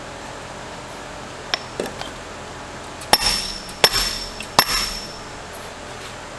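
Hammer work on metal transmission parts: a few light taps, then three hard blows about three-quarters of a second apart, each leaving a short high metallic ring.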